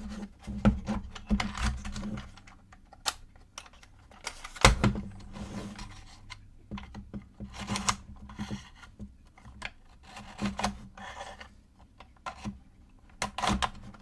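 Wooden puzzle box being handled: small wooden sliders and knobs click and rasp as they are pushed and turned, with one sharper knock just under five seconds in.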